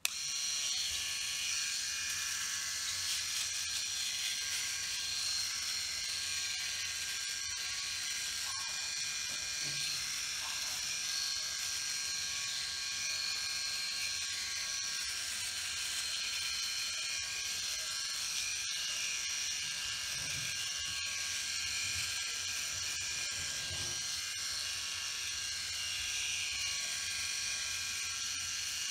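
Enchen BlackStone three-head rotary electric shaver running with a steady high buzz as it shaves along the jaw and chin.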